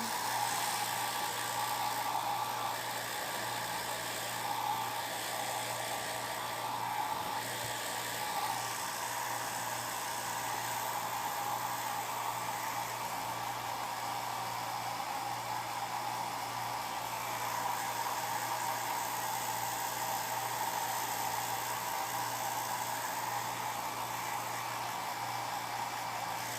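Handheld hair dryer running steadily: a constant blowing whir with a hum, drying long hair.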